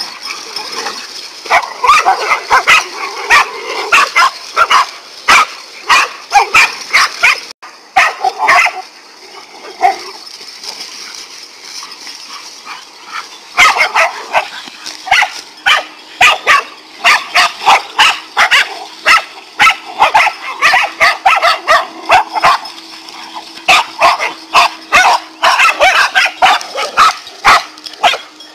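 Several dogs barking rapidly and repeatedly at a king cobra they have cornered, an aggressive volley that eases off for a few seconds partway through, then resumes.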